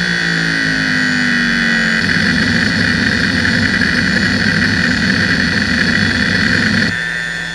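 Hitachi DK32CJ-36MC 10,000 RPM SCSI hard drive running a seek benchmark, with a steady high whine from the spinning platters and spindle throughout; the uploader notes noticeably worn bearings on a drive still in perfect health. The head actuator's buzz falls in pitch as the seeks lengthen, then about two seconds in turns to a rough, irregular chatter of random seeks. Near the end it settles into a steady low buzz of short track-to-track seeks.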